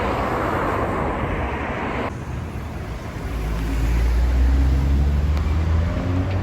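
City street traffic: a rushing noise of passing vehicles that cuts off abruptly about two seconds in, followed by a low engine rumble that swells and fades as a vehicle goes by.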